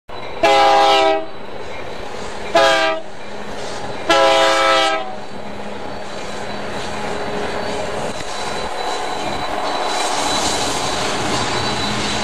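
Diesel locomotive air horn sounding three blasts, long, short, long, each a chord of several tones. Then the steady rumble of the train, slowly growing louder.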